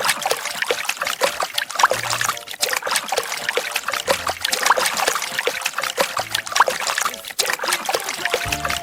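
Water bubbling and trickling continuously, with a dense run of small pops and splashes.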